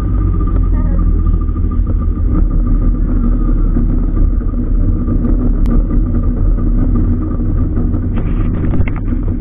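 Speedboat engine running steadily under way, a loud continuous low rumble with a steady drone.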